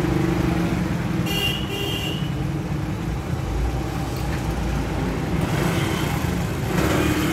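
Steady road traffic noise with a low engine drone, and a brief vehicle horn toot about a second and a half in.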